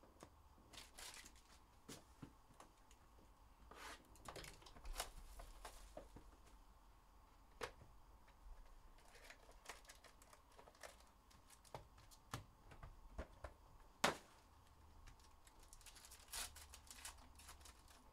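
Faint rustling and crinkling of a foil-wrapped card pack being pulled from a cardboard hobby box, with scattered clicks and taps of cards being handled. One sharp click about two thirds of the way in is the loudest sound.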